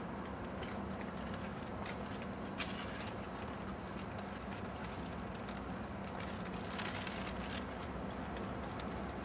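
Steady city street background: a low traffic hum, with scattered light clicks and a short hiss about three seconds in.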